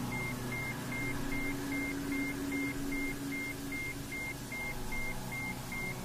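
Ambient meditation drone music: sustained low synth tones under a short, high beep that repeats steadily about two and a half times a second.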